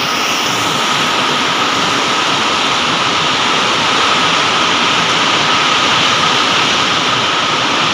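Heavy storm rain pouring down, a loud, steady rushing hiss.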